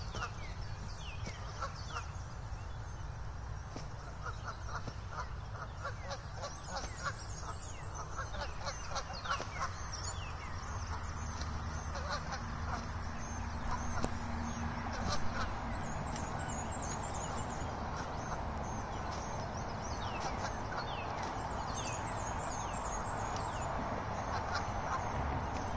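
Canada geese honking repeatedly during a fight between two ganders over a mate. Small birds chirp in the background with quick falling notes.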